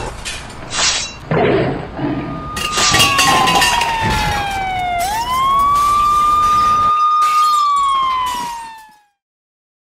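Sound effects for an animated logo outro. A few quick swishes and hits come first, then a siren-like whistling tone. The tone slides slowly down, snaps back up about halfway through and holds, then slides down again and fades out near the end.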